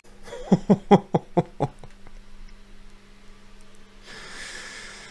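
A man laughing: a quick run of about six short 'ha' bursts in the first two seconds, then a breathy, wheezing laugh about four seconds in.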